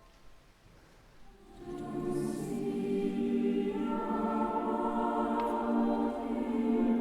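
Concert choir singing: after a short pause it comes in about a second and a half in, swells quickly, and holds sustained chords.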